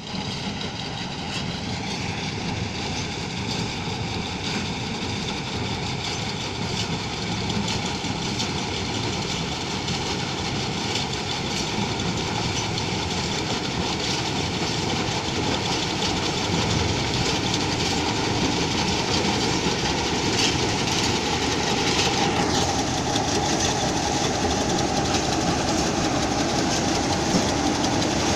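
Combine harvester running steadily during corn harvest, a dense mechanical rumble and rattle that slowly grows louder.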